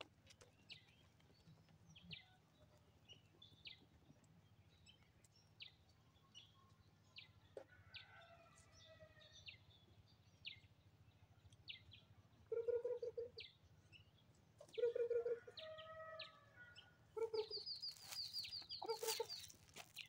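Hens clucking in short pulsed bursts, several times in the second half, over frequent short high chirps of small birds and a rapid high trill near the end.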